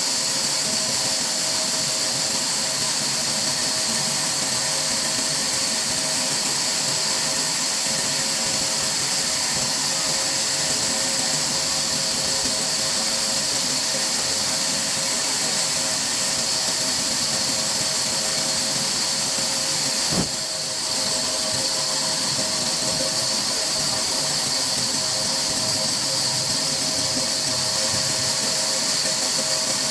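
Steady whirring machine noise with a strong hiss and a constant two-note hum, broken once by a brief click about twenty seconds in.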